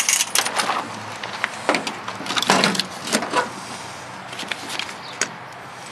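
Irregular knocks, clicks and clatters of a stripped radio's metal chassis and circuit board being handled on a pickup truck bed, the loudest knock about two and a half seconds in.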